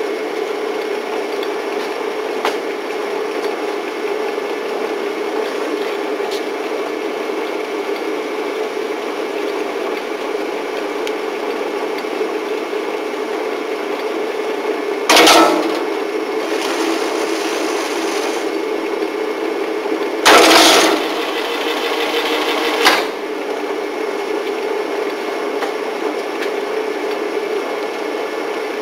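F&G spiral binding machine running with a steady hum. About halfway through, and again some five seconds later, it gives a short loud burst of noise, and a single click follows a couple of seconds after the second one.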